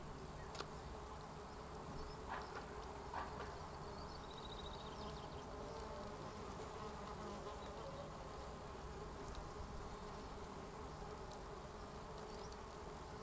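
Red mason bees buzzing: a steady, slightly wavering wing drone, with a few light ticks in the first few seconds.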